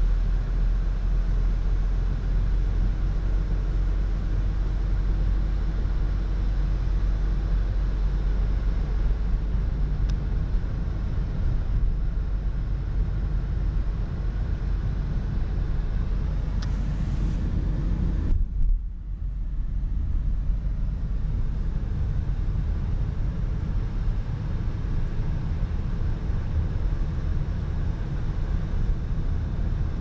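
Steady low rumble of a car's engine and tyres on a wet, slushy road, heard inside the moving car's cabin. The noise briefly drops and turns dull about two-thirds of the way through.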